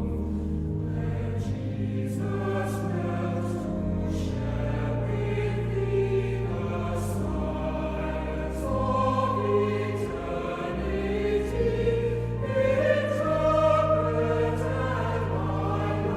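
A choir singing a slow, sustained piece: long held chords over a steady low bass line.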